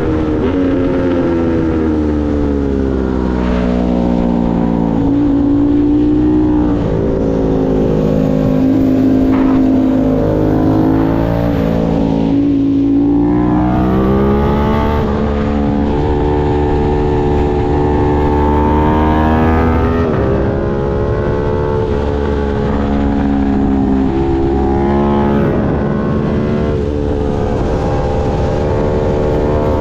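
Aprilia Tuono 660's parallel-twin engine at track pace, its pitch repeatedly climbing as it pulls through the gears and falling back on shifts and braking, with wind rush over the microphone.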